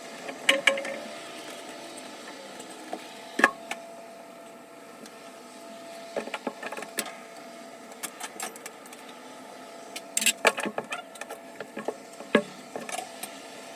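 Irregular sharp clicks and knocks, with a dense cluster about ten seconds in, over a faint steady hum.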